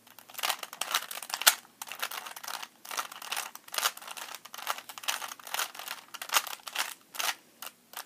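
A 3x3 Rubik's Cube being twisted by hand, its plastic layers clicking and rattling in quick runs of turns, with a short pause about a second and a half in.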